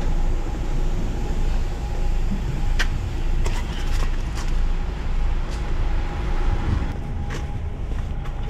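DAF XF truck heard from inside the cab while driving: a steady low engine and road drone with a faint steady higher tone, and scattered light clicks or rattles.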